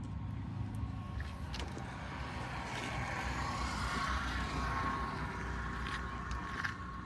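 JCB 3DX backhoe loader's diesel engine running steadily, with a thin steady whine above the low rumble. A rushing hiss swells up in the middle and fades again.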